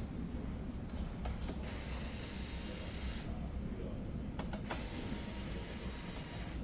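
Computer hardware being handled: a few small clicks and two stretches of rustling hiss over a steady low hum.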